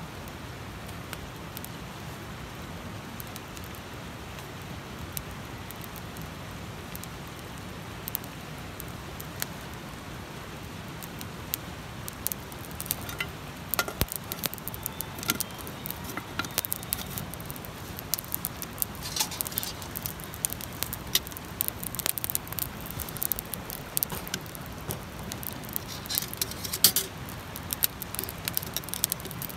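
Wood campfire crackling and popping over a steady low rush, the pops sparse at first and much more frequent from about halfway on.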